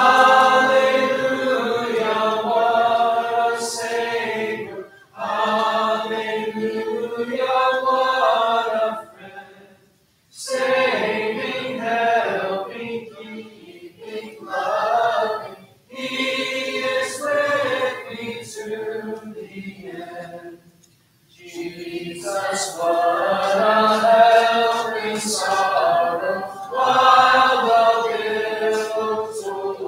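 Church congregation singing a hymn unaccompanied, in sustained lines with brief pauses between them.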